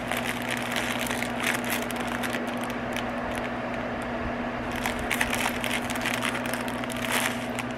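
Packaging crinkling and crackling as it is handled, in irregular clusters of small crackles, over a steady low hum.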